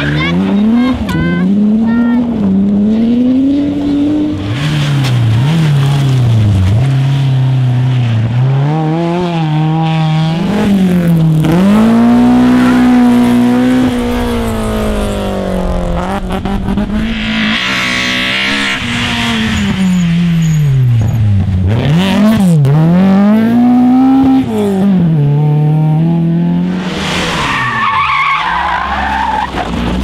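Rally cars revving hard through corners, the engine note climbing and dropping again and again with the gear changes and throttle lifts. Tyres skid in bursts, twice loudly in the second half.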